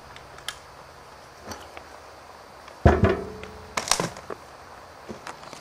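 Knocks and clunks of a heavy Lincoln Mark VII brake master cylinder and ABS booster assembly being turned over by hand on a hard floor. The loudest is a sharp thump about three seconds in, followed a second later by a quick cluster of clunks.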